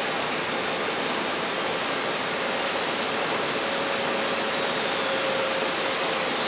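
Steady outdoor hiss of railway-station ambience, even and unchanging, with a faint steady hum joining about halfway through.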